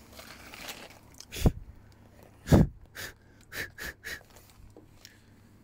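Trash being handled in a dumpster while a cardboard box is pulled out. There are two dull thumps, about a second and a half and two and a half seconds in. A few short, sharp rustles and clicks follow.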